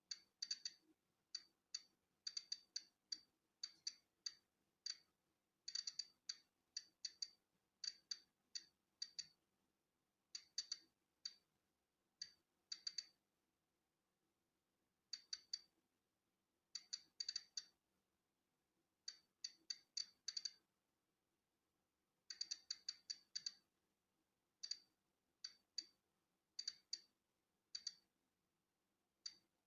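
Polon EKO-C digital Geiger counter clicking at random intervals, the clicks coming in quick bunches with short gaps between. Each click marks a particle of natural background radiation registered by the detector.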